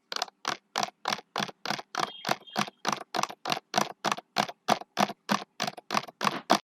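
Horse hoofbeats: evenly spaced sharp clops, about three a second, in a steady unbroken rhythm.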